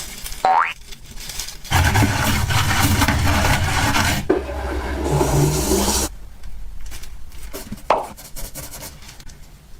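Rough rubbing and scraping, loudest in a stretch of a few seconds in the middle, then fainter, with a single sharp click near the end.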